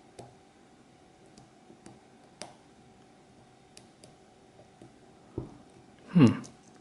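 Faint, scattered small clicks of a lock pick working the pins of an ASSA Twin 6000 cylinder under tension. About five seconds in there is a thump, and near the end comes a louder, short sound that falls in pitch.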